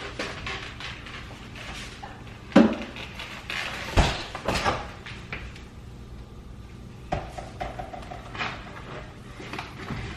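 Kitchen handling noise as things are fetched and set down: several separate knocks and clunks, like a door shutting or items put on a counter. The two loudest come about two and a half and four seconds in.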